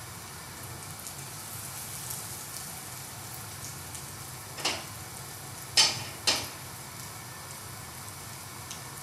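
Eggs frying in tomato sauce in a pan, a steady sizzle, with three sharp knocks of cookware being moved on the stovetop a little past halfway through.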